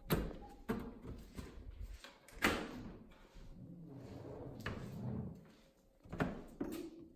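Knocks and clicks as a KEF in-wall speaker is handled and pressed into a wooden wall panel, with softer handling noise between them; a sharp knock about two and a half seconds in is the loudest.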